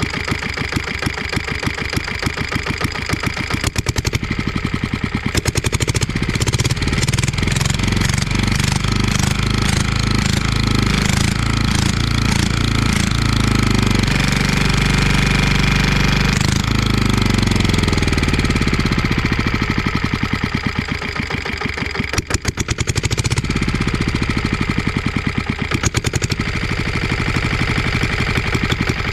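Lombardini Tipo 520 single-cylinder engine running with a steady beat of firing strokes. About halfway through, its speed is raised for a couple of seconds, then it drops back to a slower run.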